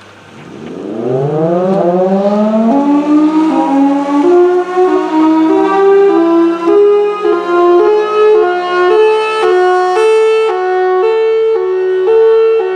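Tornado warning siren winding up from a low pitch to a loud wail over the first few seconds, then shifting back and forth in steps between two close pitches over a steady low hum.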